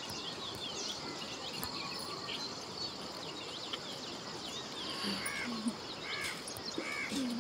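Outdoor ambience: a steady rushing hiss with many short, high chirps throughout, and a few louder repeated arched calls from about five seconds in.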